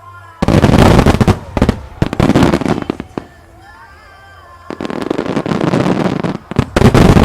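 Fireworks display shells bursting in dense crackling volleys: a long volley, a lull of about two seconds, then a second volley that ends with its loudest burst.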